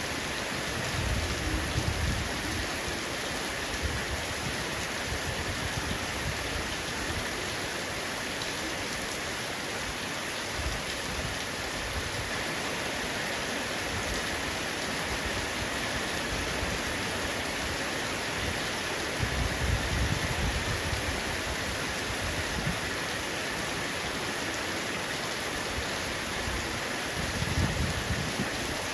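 Heavy rain falling steadily on a roof, a dense even hiss of drops. A low rumble swells up three times: about a second in, about two-thirds of the way through, and near the end.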